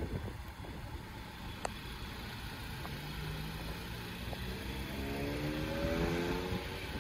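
A vehicle's engine accelerating, its pitch rising steadily from about three seconds in and growing louder, over steady low outdoor noise.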